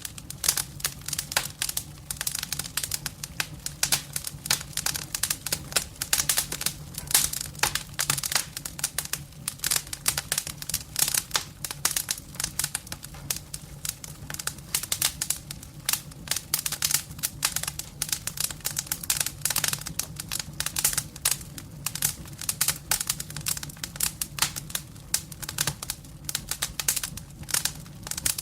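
Firewood burning in a fireplace: dense, irregular crackling, with a steady low hum underneath.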